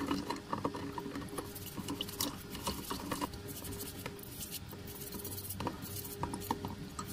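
Toothbrush bristles scratching and scrubbing the wet metal body shell of a die-cast model car in quick, irregular strokes, working off loosened paint.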